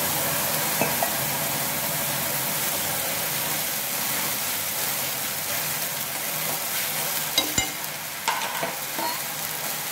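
Water poured into a kadhai of hot oil tempered with mustard and cumin seeds, curry leaves and coriander, sizzling and hissing steadily and slowly dying down. A few sharp knocks, like a spoon against the pan, come near the end.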